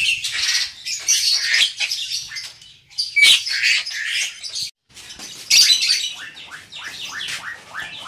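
Black-winged mynas (jalak putih) calling in an aviary: harsh chattering squawks in bursts, breaking off for an instant just before halfway. Then comes a run of quick falling chirps, three or four a second.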